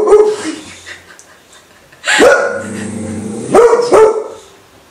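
Pet boxer dog barking: the tail of one bark at the start, then two sharp barks about two seconds in and again a second and a half later.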